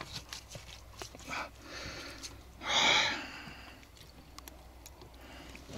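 Small clicks and rustles of hands working a jig lure free from a zander's mouth, hooked in the upper jaw, with one short breathy exhale about three seconds in.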